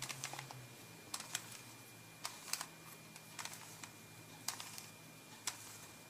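Faint plastic clicks and clacks of a 3x3 Rubik's-type cube as its layers are turned one at a time, about one turn a second, while an eight-move corner-cycling sequence is worked through.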